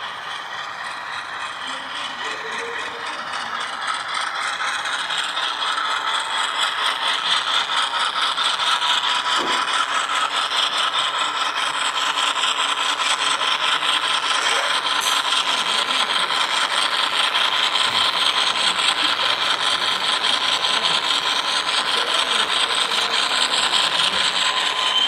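Model train hopper cars rolling past close by, their wheels rattling and clicking rapidly over the track. It grows louder over the first several seconds, and a thin steady whine joins in about ten seconds in.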